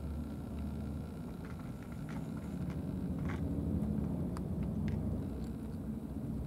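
A steady low rumble, like a distant engine, growing slightly louder a few seconds in, with a few faint ticks over it.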